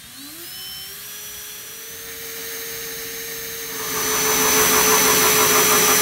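Cordless drill spinning a hole saw into a wooden door. The motor whine rises as it spins up, then holds steady. About four seconds in, the saw teeth bite into the wood and the cutting grows much louder.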